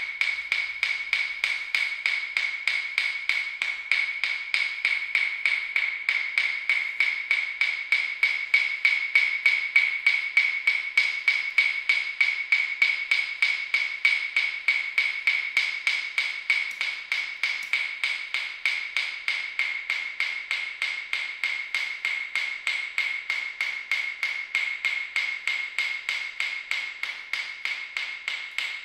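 Steady, evenly spaced clicking, about four clicks a second, over a constant high ringing tone.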